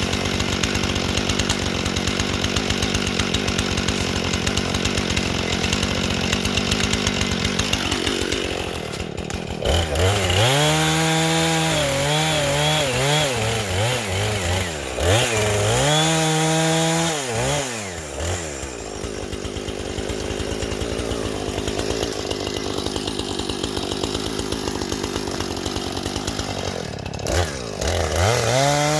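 Two-stroke chainsaw cutting through dead wood, bogging under load, with the engine revving up and dropping back several times between cuts.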